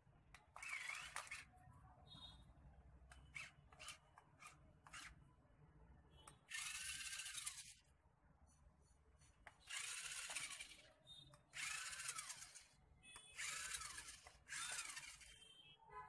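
Small electric gear motors of a toy twisting RC rock crawler whirring in about six short bursts of a second or so, each with a changing whine, with a few light clicks between.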